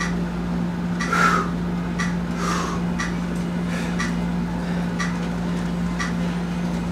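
A steady low hum with faint regular ticks, about two a second, and a few soft rustles.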